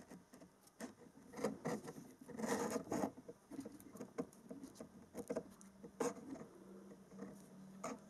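Fingers twisting and folding over the stripped ends of thin stranded wire close to the microphone: faint, irregular rustling and small ticks.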